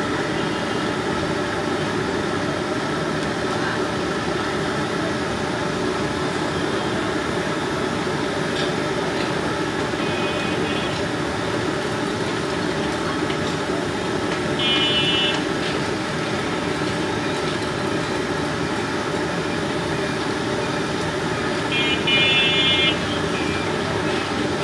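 Jilapi (jalebi) frying in a wide pan of hot oil, a steady sizzle with busy street noise around it. A few short high beeps cut in, the loudest about two-thirds of the way in and again near the end.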